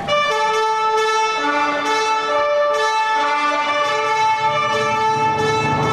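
Music: a slow melody of long held notes, led by violin-like strings, starting abruptly.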